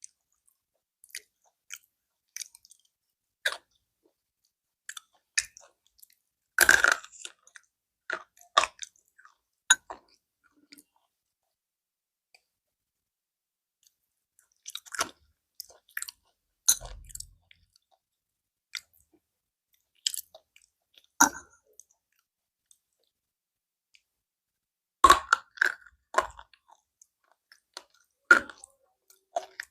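Slate pencils being bitten and chewed: short, sharp, dry crunches in irregular clusters, with silent pauses of a few seconds between bites.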